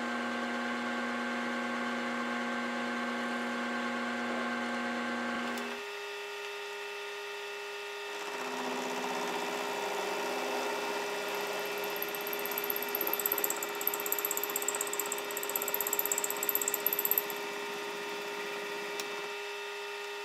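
Milling machine spindle running with an end mill cutting into an aluminium tube. The machine's pitch changes about six seconds in; from about eight seconds a rough, uneven cutting noise with a thin high whine builds up. It eases off near the end, leaving the spindle running steadily.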